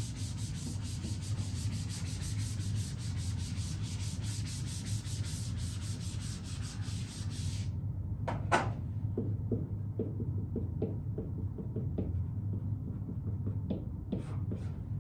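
Whiteboard eraser scrubbing back and forth across a whiteboard for about eight seconds. It then stops, there is a sharp click, and a marker makes a run of short, squeaky strokes as a word is written on the board.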